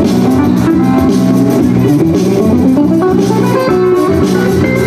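DJ music for the dancers: a guitar line over a steady beat.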